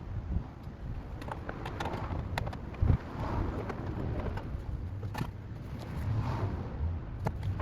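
Clicks, knocks and rustling of hands working a turn-signal bulb socket back into a vehicle's front light housing, with one sharper thump about three seconds in.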